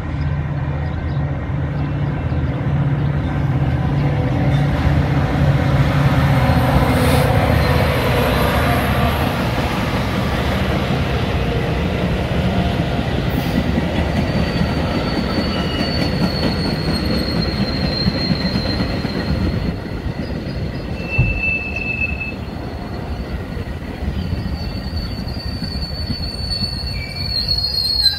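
Metra F40PH-3 diesel locomotive drawing an arriving commuter train past the platform, its engine drone loudest about a quarter of the way in, followed by the stainless bi-level gallery cars rolling by. From about halfway a long high wheel squeal runs under the rolling noise as the train slows for the station.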